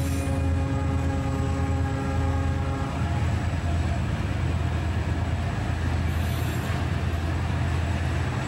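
Diesel freight locomotives running with a steady deep rumble, their air horn sounding one long blast for about the first three seconds.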